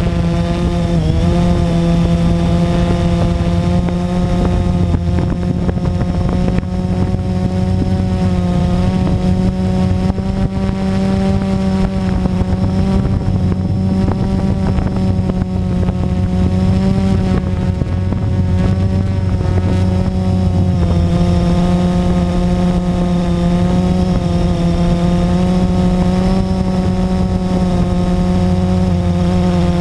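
Blade 350QX quadcopter's brushless motors and propellers running in flight, heard from the camera carried on the drone: a steady hum whose pitch wavers slightly as the throttle changes.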